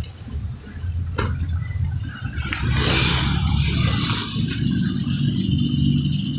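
Caio Apache Vip city bus pulling up with its diesel engine running, the engine note growing stronger toward the end. A loud hiss runs from about two and a half to four and a half seconds in, over a short click about a second in.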